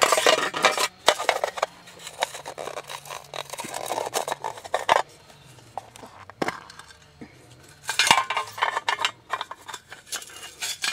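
Small metal char tin being handled and opened: irregular metallic clinks and scrapes of the tin and its lid, in clusters near the start, about four seconds in, and around eight seconds in.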